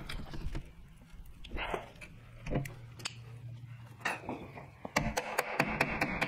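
Metal clinks and short scrapes as locking pliers and tools are handled on a metal mower deck, then a hand wire brush scrubbing the deck's metal in a dense scratchy stretch near the end.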